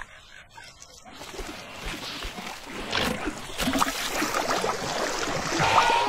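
Water splashing and sloshing as a large crocodile wades through shallow water, growing louder over several seconds, with a short pitched call near the end.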